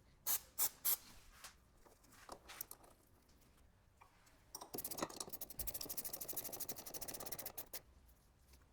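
Ratchet wrench working on a car's stabilizer link: three sharp clicks near the start, then a run of fast, even ratchet clicks for about three seconds.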